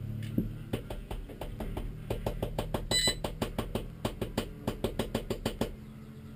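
Faulty starter motor of a stalled Toyota Starlet race car being tried: a rapid, even clicking, about four a second, for several seconds. It stops near the end without the engine starting.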